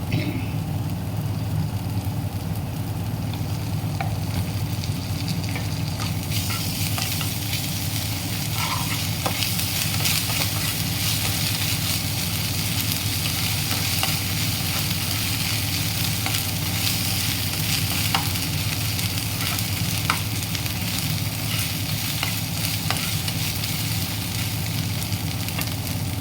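Chopped onions and ginger-garlic paste frying in hot oil in a kadai: a steady sizzle, with a spatula stirring and clicking against the pan now and then. The sizzle grows louder about six seconds in, over a steady low hum.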